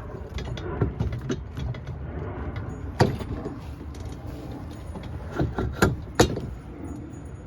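Sharp clinks and knocks of loose metal washers and wheel hardware being handled, loudest once about three seconds in and in a quick run of three near the end, over a steady low background rumble.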